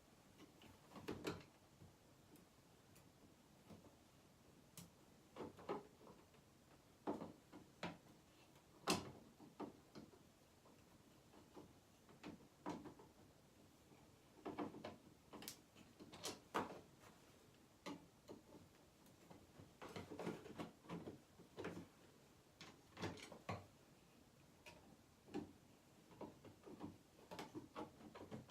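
Irregular faint clicks and short scrapes of screws being driven by hand into a light switch, scattered through the stretch with quiet gaps between them.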